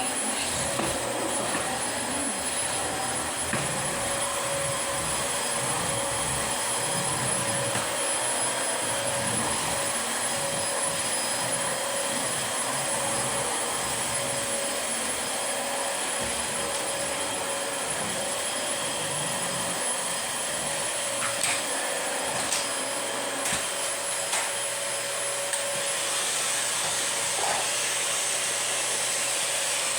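Dyson DC25 Animal upright vacuum cleaner running steadily, a constant tone held over its motor noise, with a few short clicks from the machine being worked across the floor about two-thirds of the way through.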